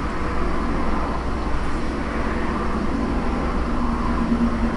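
Steady background noise with a low rumble and hiss, even throughout, with a faint steady hum appearing in the second half.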